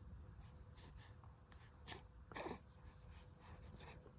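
Near silence, with a baby's faint breathing and one brief soft grunt about two and a half seconds in.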